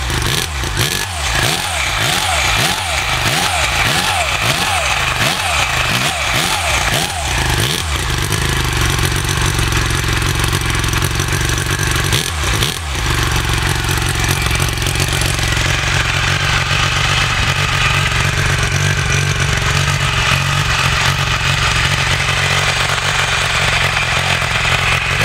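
Sachs KM3 single-rotor Wankel engine running loudly. Its pitch rises and falls rapidly over and over for the first several seconds, then it settles into a steady run.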